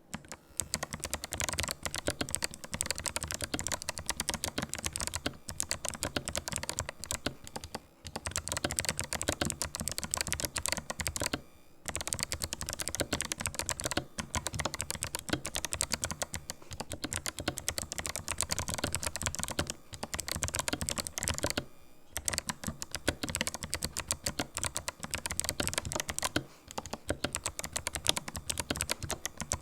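Fast, continuous typing on a Ninja87 Pro mechanical keyboard with fully lubricated Kailh Box White clicky switches: a dense run of keystroke clicks broken by a few brief pauses.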